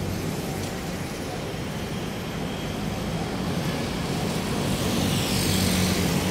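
Road traffic: a steady vehicle engine hum and rushing noise that grows louder about five seconds in, as a vehicle passes close.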